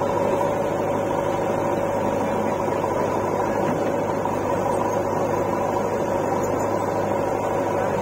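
JCB 3DX backhoe loader's diesel engine running steadily while the backhoe arm works, a constant drone with no change in pitch.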